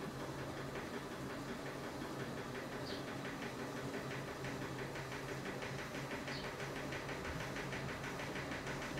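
Steady low hum and hiss of room noise, with a fine regular ticking that comes in about halfway through and a faint short high chirp about every three seconds.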